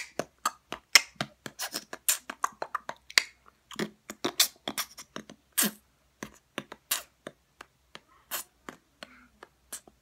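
Mouth clicks and lip pops made by a boy, a quick irregular run of sharp clicks that thins out after about seven seconds.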